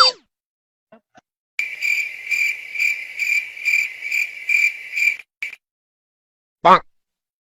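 Crickets-chirping sound effect: a high pulsing trill, about two chirps a second for three and a half seconds, that stops abruptly. Near the end comes one short, loud pitched blip.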